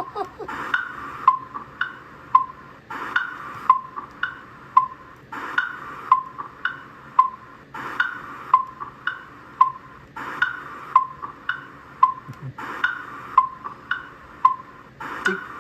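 The cartoon Tick Tock Crocodile's clock-ticking sound effect: a hollow, wood-block-like tick-tock repeating about twice a second, with a short swishing burst about every two and a half seconds.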